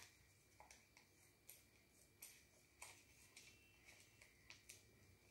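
Near silence with faint, sharp little clicks at irregular intervals, roughly one or two a second.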